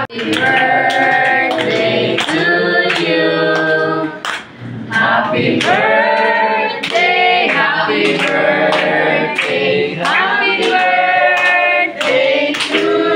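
Voices singing a song together, with held, gliding notes, and some hand clapping along.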